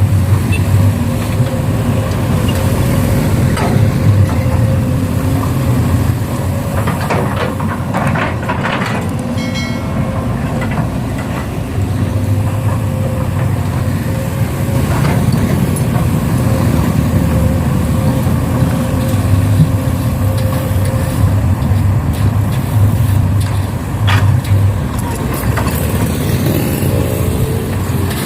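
Radio-controlled model truck and excavator running: a steady low engine-like drone with a thin steady whine above it, broken by a few short clattering knocks.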